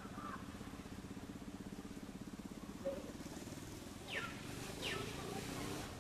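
A distant engine running with a steady, finely pulsing hum that fades after about three seconds. Near the end come two short high calls, each falling sharply in pitch.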